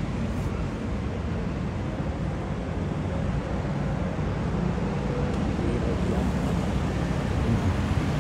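Steady road traffic noise from cars and vans driving along a street, mostly a low rumble.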